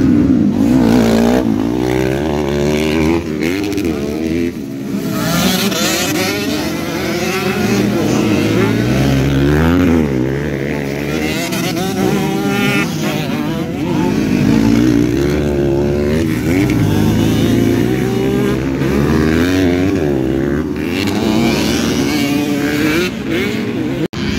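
Motocross bike engines revving hard on a dirt track, the pitch rising and falling again and again as the riders accelerate and back off through the corners, with more than one bike heard at times.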